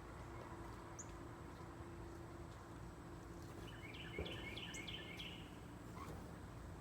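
A bird calling outdoors: a quick run of about six short downward-sliding notes about four seconds in, over a steady low background hum.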